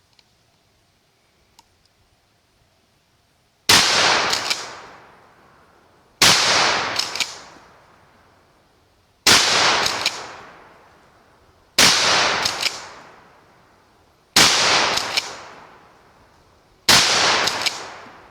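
Six 12-gauge shotgun shots fired in steady succession, about two and a half seconds apart, each sharp blast trailing off over a second or so. The shotgun is emptied of shells.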